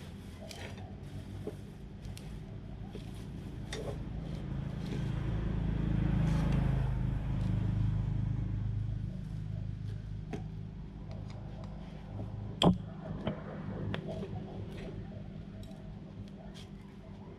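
Hand tools and metal parts being worked on a disassembled grass-cutter engine, with creaks and scattered clicks. One sharp metallic click about twelve seconds in is the loudest sound, over a steady low hum that swells in the middle.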